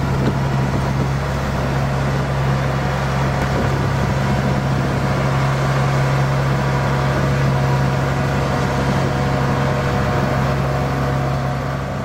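Farm machine engine running at a steady speed, a constant loud low hum, beginning to fade near the end.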